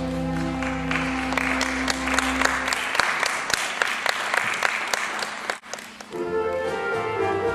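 Audience applauding over an orchestra's held closing chord. The chord fades about three seconds in and the applause carries on alone until it cuts off suddenly about five and a half seconds in. The orchestra then comes back in with sustained notes.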